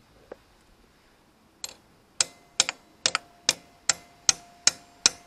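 Ratchet wrench clicking in slow, even clicks, about two and a half a second, each with a short metallic ring. The clicks start about a second and a half in.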